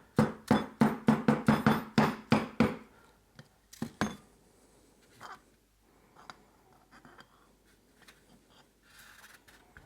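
Rubber mallet rapidly striking the crankshaft of a Moki 215cc radial engine, about four or five blows a second for nearly three seconds, then one more blow about a second later, driving the crankshaft out of the crankcase. After that come only faint light knocks.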